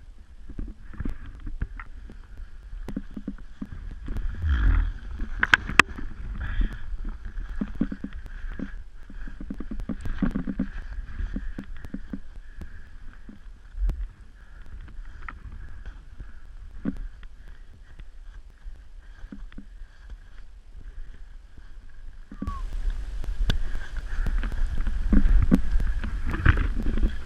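Irregular scraping, crunching and knocking of a skier's skis, poles and clothing moving in snow, with a low rumble of wind on the microphone. About 22 seconds in, a louder steady rushing noise sets in.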